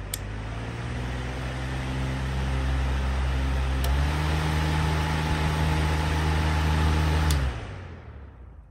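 Lakewood HV-12C high-velocity fan's electric motor humming over the rush of air from its blades, growing louder. A click sounds at the start and another about four seconds in, where the hum steps up and gets louder. A third click comes near the end, where the motor hum cuts off and the whoosh fades as the blades spin down.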